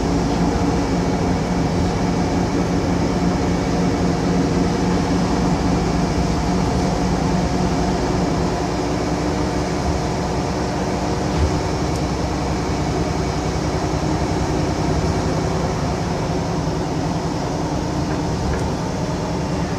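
Solaris Urbino 12 city bus heard from inside the passenger cabin while driving: a steady drone of the engine and drivetrain over road and tyre noise. There is one short thump a little past halfway.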